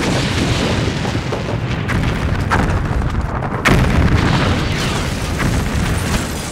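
Hand grenades exploding one after another: a continuous rumble of blasts with sharp cracks, and a fresh, louder blast a little past halfway.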